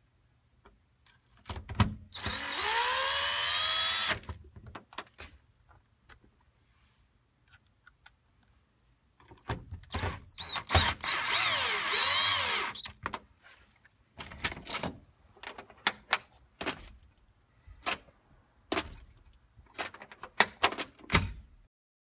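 Power drill drilling two pilot holes, two runs of about two and three seconds, the motor pitch rising as it spins up. After that, a series of sharp clicks and knocks of tool and parts being handled.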